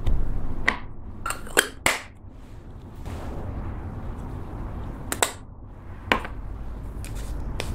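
Sharp plastic clicks and taps as lipstick tubes and their caps are handled and a cap is pulled off: a quick cluster of clicks about a second in, then single clicks spaced out later, over a steady low rumble.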